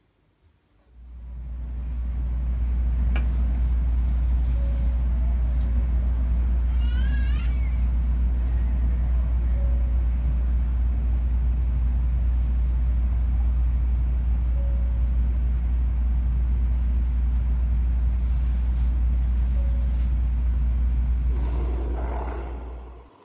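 Steady low rumble of a Shinkansen bullet train's passenger car running at speed, heard from inside the cabin. It fades in about a second in and fades out near the end.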